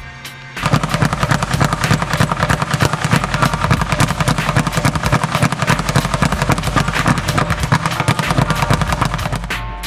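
Speed bag being hit in a fast, continuous rhythm: a rapid rattle of the leather bag rebounding off its wooden platform. It starts about half a second in and stops just before the end.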